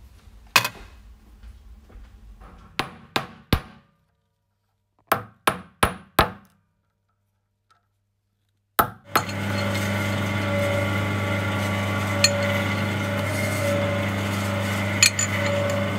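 Hammer striking a small piece of gold on a steel block: one blow, then a run of three quick blows, then four, then two more. About nine seconds in, a steady electric hum takes over, the geared jeweller's rolling mill running.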